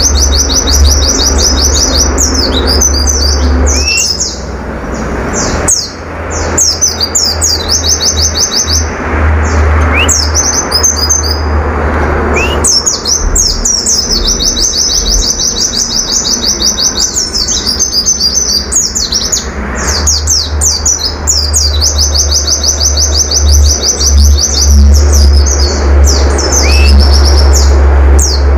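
White-eye (pleci) singing in full rapid song: long, fast trills of repeated high notes broken by quick chirps and a few short rising whistles. A low rumble runs underneath.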